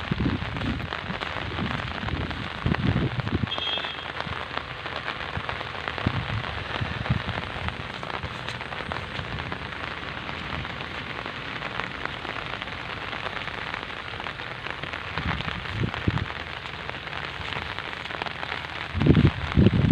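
Steady patter of rain, with a few dull low thumps here and there.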